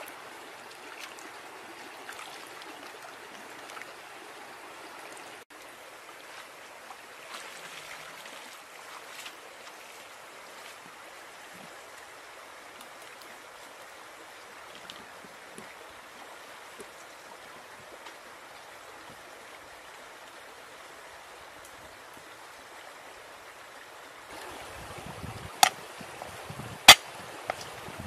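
Steady rush of flowing stream water. Near the end three sharp knocks ring out, each standing well above the water.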